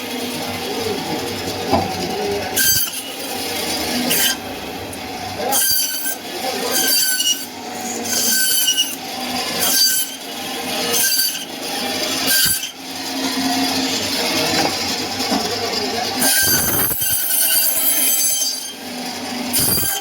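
Butcher's knife work on meat: repeated metallic scraping strokes with a high squealing ring, irregular, about one every second or so, with a longer scrape near the end.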